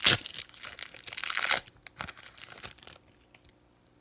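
A foil Pokémon booster pack wrapper torn open with a sharp rip, then crinkled and rustled for about a second and a half, followed by a few light taps and rustles of the cards that die away about three seconds in.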